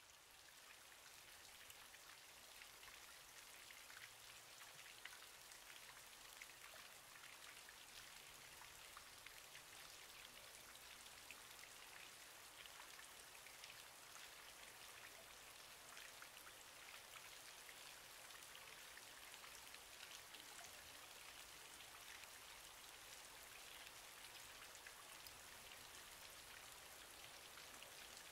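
Faint steady rain, a soft hiss dotted with many fine drop ticks, swelling in over the first couple of seconds and then holding steady.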